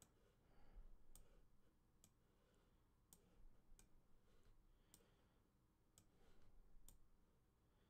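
Faint computer mouse clicks, about seven of them roughly a second apart, over near-silent room tone.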